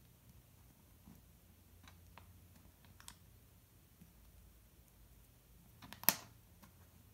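Plastic Lego bricks clicking faintly as they are handled and fitted together, with one sharp snap about six seconds in as a brick is pressed onto another.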